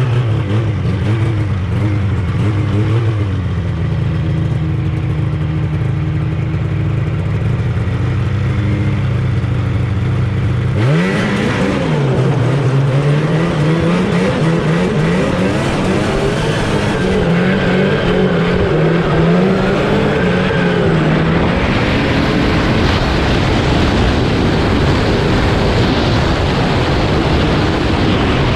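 1984 Yamaha Phazer snowmobile's 485cc two-stroke twin idling steadily, then revved sharply about eleven seconds in as the sled pulls away, its pitch rising and wavering. For the last several seconds, wind rushing over the microphone mixes with the engine running at speed.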